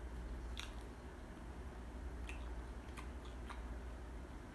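Crispy fried chicken being eaten: a few short, sharp crunches of its crisp skin and crust, spaced irregularly over a low steady hum.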